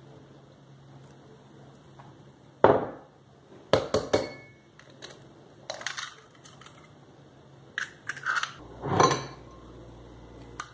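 Eggs being cracked against a ceramic bowl and the shells pulled apart, with a handful of sharp knocks, crackles and clinks of the bowls.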